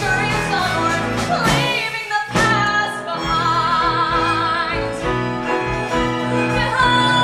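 A woman sings a musical-theatre song solo into a microphone, backed by a live band. After a short break about two seconds in, she holds a long note with a wide vibrato.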